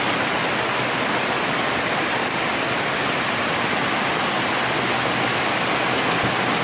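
Heavy tropical rain pouring down, a steady dense hiss with no let-up.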